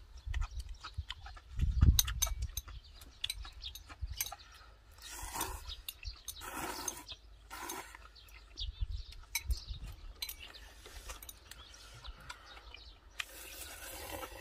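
A person slurping ramen noodles in several noisy pulls, three in the middle and one near the end, amid small clicks of chewing. There is a brief low thump about two seconds in.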